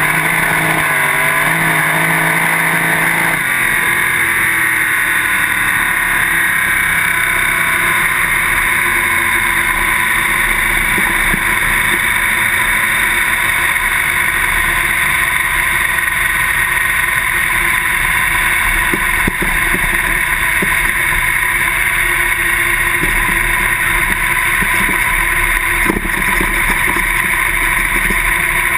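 Two-barrel carburetted sprint car V8 running on a dirt track, heard through an on-board camera. Its pitch shifts in the first few seconds, then holds steady under a dense rush of noise.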